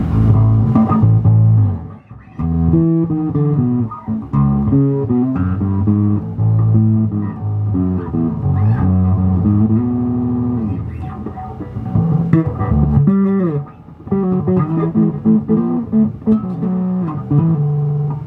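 Five-string Sire V3 electric bass played through an Orange Crush Bass 50 combo amp: a run of plucked notes and short riffs, with brief breaks about two seconds in and again near fourteen seconds.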